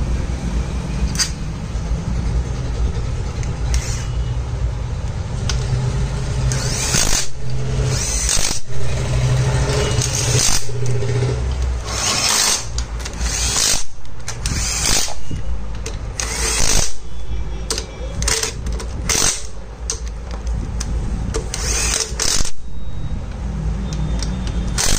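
Cordless impact driver run in many short bursts, driving in and tightening the bolts of a Honda Activa scooter's CVT cover, over a steady low hum.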